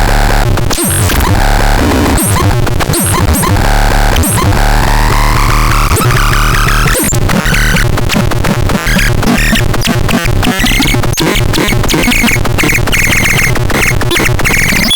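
Synthesizer playing harsh, noisy electronic tones over a steady low drone, with a rising pitch sweep a few seconds in and then fast stuttering clicks and warbling high tones.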